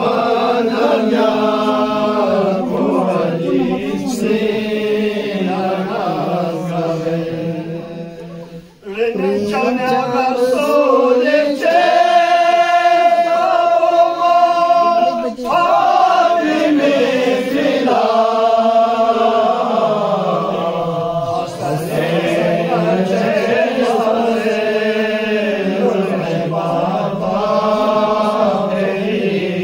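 Men chanting a Purgi-language qasida, a devotional poem, with unaccompanied voices in long, drawn-out melodic lines. About nine seconds in there is a brief pause for breath, after which the voices return at a higher pitch.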